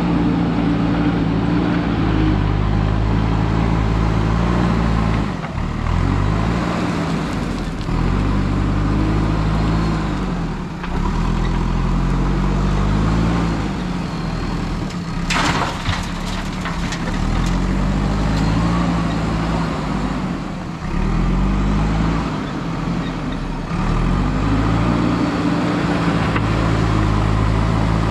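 JCB 3DX backhoe loader's diesel engine working hard under hydraulic load, its pitch rising and falling over and over as it digs into the gravel pile and lifts. There is a brief burst of noise about halfway through.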